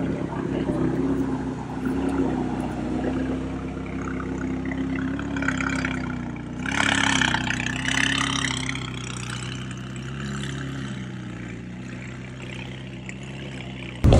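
McLaren twin-turbo V8 idling as the car creeps past at low revs: a steady low engine sound with small wobbles in pitch, growing fainter as it moves away near the end.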